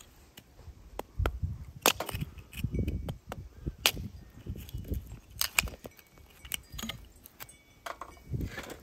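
Hatchet splitting a piece of firewood into kindling: a series of irregular sharp cracks and knocks as the blade bites and the wood splits, some with a dull thud beneath.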